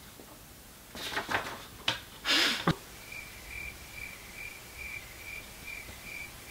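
Cricket-chirp sound effect for an awkward silence: a thin chirp repeated evenly, about two a second, through the second half. A few brief rustles and clicks come before it.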